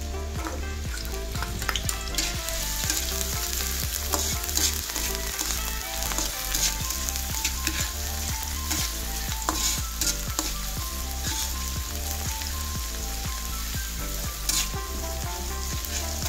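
Diced onion sizzling in hot oil in a wok as it is sautéed, with a spatula scraping against the pan while stirring and now and then a sharper knock of the spatula on the metal.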